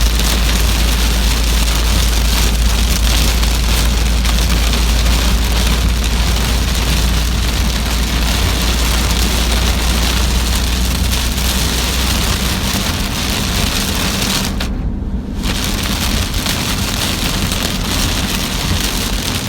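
Steady heavy rain falling, with a deep low rumble under it for about the first twelve seconds. The rain sound cuts out briefly about fifteen seconds in.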